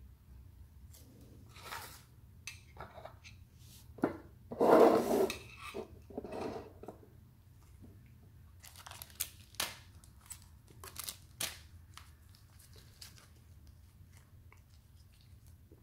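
Unboxing handling noises: disposable-gloved hands rustling and crinkling the sunglasses packaging, loudest about five seconds in, then a series of light clicks and taps.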